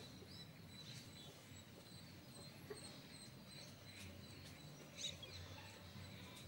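Near silence: faint outdoor ambience, with a few faint chirps and one short, sharper chirp about five seconds in.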